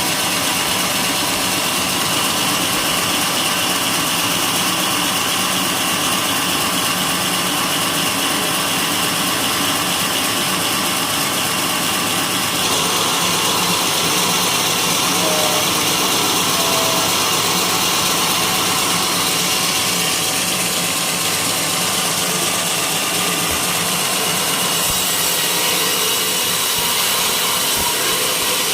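Sawmill saw running steadily as it cuts through a white-teak beam, with a change in the cutting sound about twelve seconds in.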